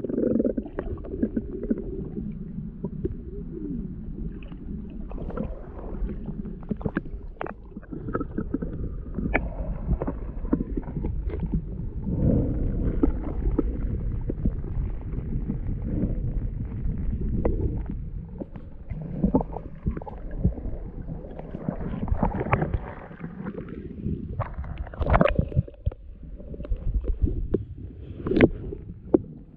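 Kayak being paddled: paddle strokes and water splashing against the hull, over a constant low rumble on the microphone, with scattered knocks, the loudest near the end.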